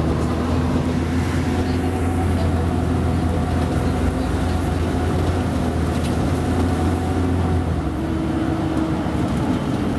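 Diesel engine of a Mercedes-Benz O-500UA articulated bus running steadily with a deep, even hum. About eight seconds in, the engine note shifts slightly as its speed changes.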